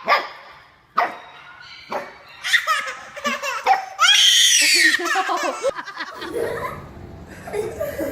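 A young child laughing, in short bursts at first and then a long, high laugh about four seconds in.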